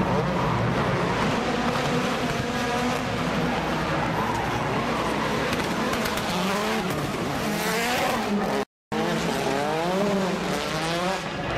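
Rally cars' engines revving hard, rising and falling in pitch as they drift, over tyre squeal. The sound breaks off for a moment about three quarters of the way through.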